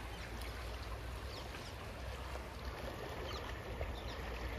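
Floodwater of a swollen, rain-fed river rushing past its bank, a steady even wash of water noise with a low rumble. Short high chirps come through now and then.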